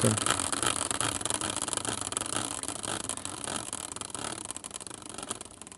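A spinning prize wheel built from a caster wheel on a metal bracket: its bearing whirs and rattles with a fast run of clicks. The sound fades as the wheel slows down and coasts to a stop.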